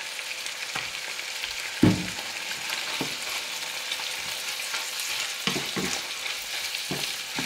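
Ground beef and sliced mushrooms sizzling as they fry in a frying pan, stirred with a wooden spatula. A few knocks of the spatula against the pan, the loudest about two seconds in.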